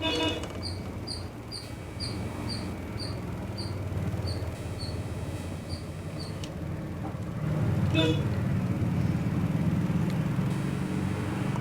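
Low engine rumble of a passing motor vehicle, swelling about two-thirds of the way through. Faint high chirps repeat about twice a second through the first half.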